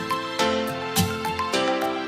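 Instrumental background music: sustained chords over a steady beat.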